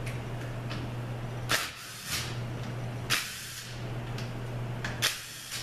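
Three sharp, short clicks about a second and a half apart, from a hand tool working on the valve body of an A4LD automatic transmission, over a steady low hum.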